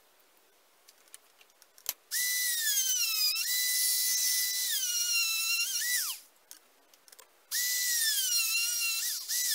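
Handheld electric drill running at high speed with a high motor whine, in two runs separated by a pause; the pitch sags and recovers as the bit bites into the wooden fidget-spinner blank and eases off.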